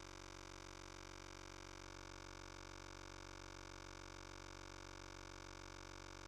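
Faint steady hiss and hum from a recording's background noise, unchanging, with no distinct sound event.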